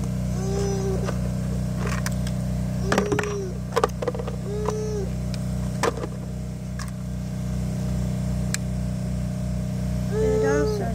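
A steady low motor-like hum with a slow pulse, with a few sharp clicks and several short, even-pitched tones over it.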